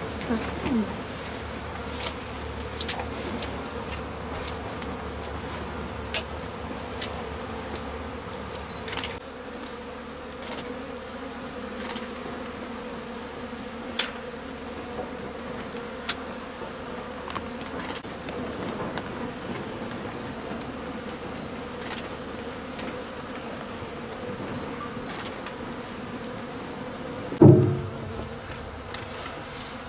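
Honeybees buzzing steadily in a dense swarm around opened hives during a honey harvest, with scattered sharp clicks and a brief low thump near the end.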